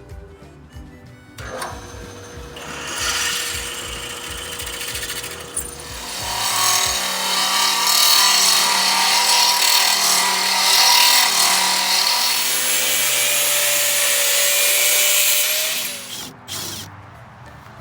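A hand-held power tool running against a workpiece with a harsh, hissing grind. It starts a few seconds in, is loudest in the second half and cuts off abruptly near the end, with background music underneath.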